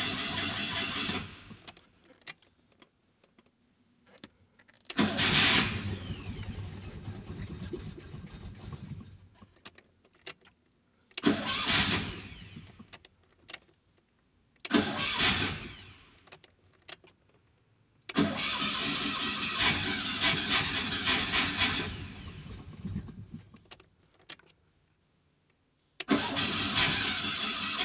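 Fiat 126p's air-cooled two-cylinder engine being cranked on the starter in repeated attempts that fail to start it: about six cranking bursts of one to four seconds each, with short pauses between them.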